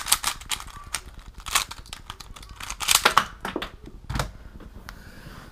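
Plastic twisty puzzle being turned quickly by hand: an uneven run of sharp plastic clicks and rattles, with a duller knock about four seconds in.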